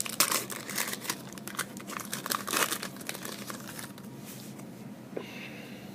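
Wrapper of a trading card pack being torn open and crinkled, a dense crackling that is busiest in the first three seconds and thins out after that.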